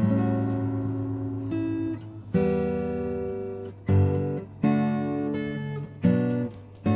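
Background music on acoustic guitar: chords strummed and plucked in a gentle pattern, a new chord struck every second or so and left to ring and fade.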